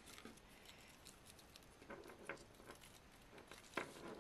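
Faint rustling and a few light clicks as small game pieces and paper lots are handled and packed back into a fabric pouch.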